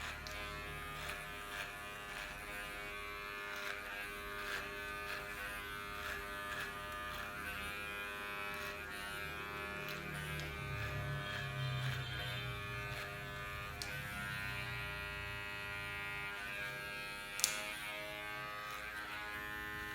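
Electric motor of a battery-powered tool running steadily with an even, high whine, rising and falling slightly in level, with one sharp click about three quarters of the way in.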